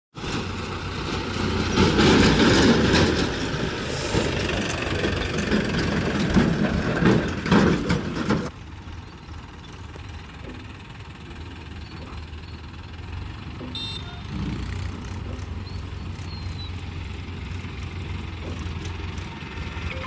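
Farm tractor's diesel engine running as the tractor pulls a trolley: loud and rough for the first eight seconds or so, then an abrupt cut to a quieter, steady engine hum.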